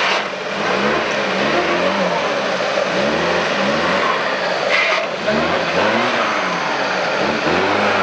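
Off-road trial car's engine revving hard in repeated throttle blips, its pitch rising and falling about once a second as the car works through the course.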